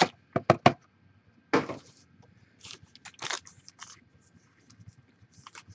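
A few sharp clicks and taps as a cardboard trading-card box is handled on a wooden desk, then short bursts of crinkling and rustling from a foil-wrapped card pack being handled.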